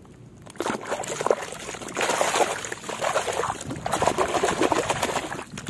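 Muddy water splashing and sloshing in a tub as a pair of plastic toy binoculars is scrubbed and swished through it by hand. The splashing starts about half a second in and goes on hard and unevenly, easing briefly near the end.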